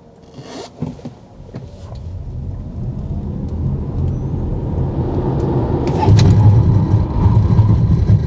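Tesla Model Y Performance on the move, its low road rumble and tyre noise building steadily over several seconds as it gathers speed. A steady whine joins about halfway through.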